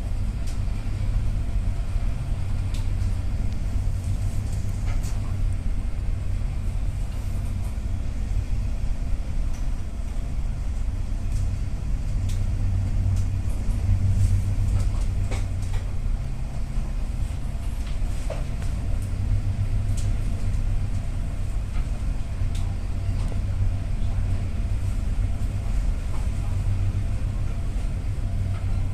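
A ship's engine drones steadily, heard on board, with scattered light clicks and rattles.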